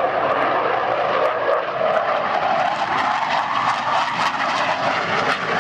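Military jet aircraft passing, its jet engine running with a loud, steady noise.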